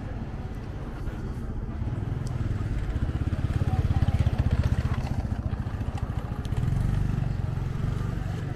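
A motor vehicle engine running close by, its low pulsing growing louder to a peak about four seconds in, easing off, then swelling again briefly near the end.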